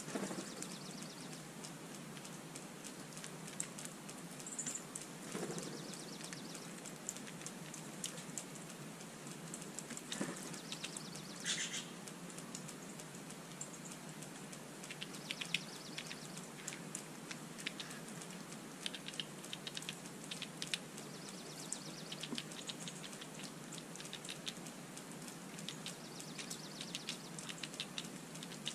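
Steller's jays pecking at peanuts on wet concrete: scattered light taps and clicks, a few louder ones about ten to twelve seconds in, over a steady outdoor hiss.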